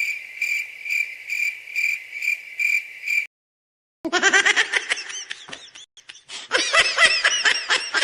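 Cricket chirping sound effect: a high trill pulsing a little over twice a second, cutting off about three seconds in. After a short silence a high-pitched laugh runs in quick rapid bursts to the end.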